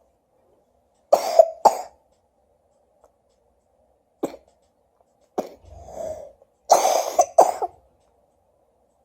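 A person coughing in several fits: a double cough about a second in, two short single coughs, then a longer run of coughs near the end.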